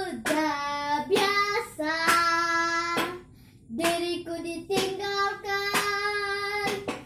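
A young girl singing unaccompanied in long held notes, breaking off briefly about halfway. A sharp tap sounds about once a second, keeping time.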